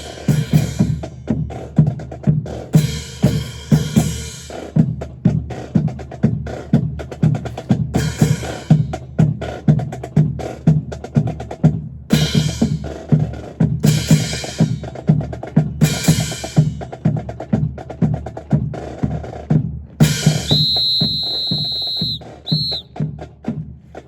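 Marching drum cadence on snare and bass drums, a steady beat of about two strokes a second with cymbal crashes every few seconds, keeping time for a military drill display. Near the end a high whistle sounds, one long blast and then one short.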